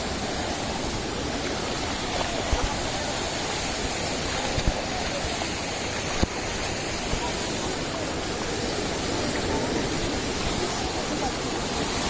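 Sea surf breaking and washing onto a beach in a steady, even rush, with a few brief low thumps.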